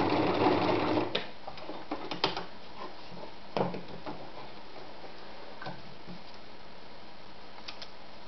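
Privileg Voll-Zickzack Superleicht 360 sewing machine running steadily as it stitches garment leather, stopping suddenly about a second in. A few scattered clicks and knocks follow.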